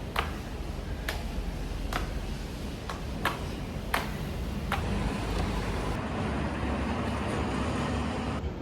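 Road traffic rumbling steadily, with a run of sharp clicks about once a second that stop about five seconds in.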